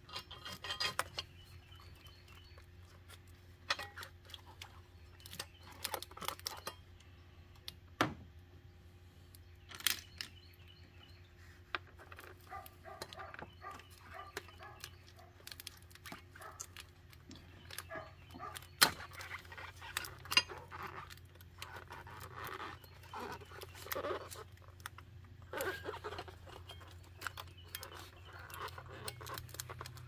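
Hands working in a car's engine bay: scattered sharp clicks and taps, with stretches of small plastic and metal rattling, as wiring connectors, loom clips and hoses are handled and unclipped. A steady low hum runs underneath.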